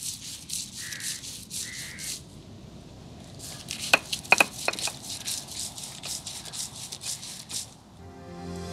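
Coconut being ground to a paste on a traditional grinding stone: rhythmic back-and-forth rubbing strokes, about three a second. A few sharp knocks come around the middle.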